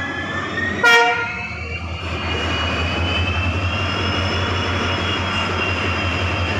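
WDG4 diesel locomotive's 16-cylinder two-stroke EMD engine running, with a whine that slowly rises in pitch. A brief horn toot comes about a second in. From about two seconds in, the engine's low drone grows louder.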